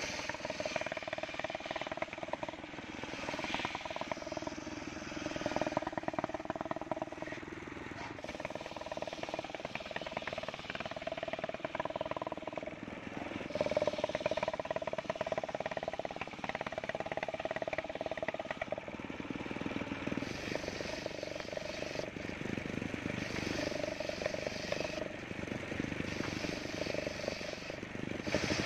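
Large engine-driven circular sawmill blade running and cutting waru (sea hibiscus) wood into boards. Its steady whine breaks and comes back every second or two as each cut is fed through.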